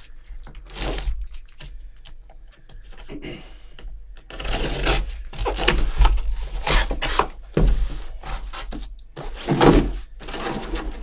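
A sealed cardboard case of trading-card boxes being opened and handled: irregular scraping and tearing of cardboard with a few dull thunks, busier in the second half.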